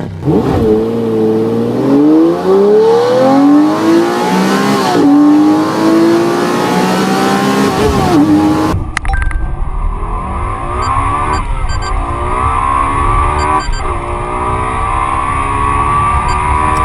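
Lexus LFA's 4.8-litre V10 on a launch-control start, revving high and accelerating hard. The pitch climbs and drops back at gear changes about five and eight seconds in. About nine seconds in the recording cuts to another stretch of the V10 pulling up through the gears, with shifts near the end.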